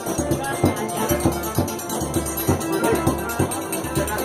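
Forró dance music playing, with a steady low drum beat about three times a second and rattling shaker-like percussion over it.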